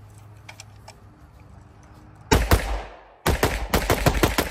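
Pistol fitted with a G Flex trigger firing rapidly: a short burst of shots a little after two seconds in, then, after a brief pause, a fast string of shots that is still going at the end.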